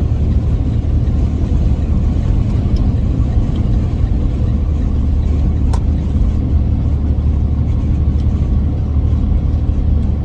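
Steady low rumble of a running vehicle engine, with a faint click about six seconds in.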